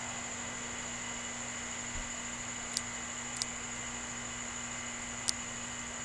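Steady hiss with a constant hum, broken by three very short high ticks about three, three and a half and five seconds in.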